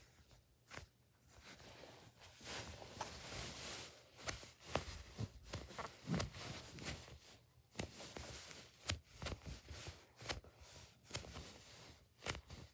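Hands squeezing and kneading soft foam squishy toys: faint rustling and scrunching of the foam with many small scattered clicks and taps as fingers press, shift and brush the bedspread.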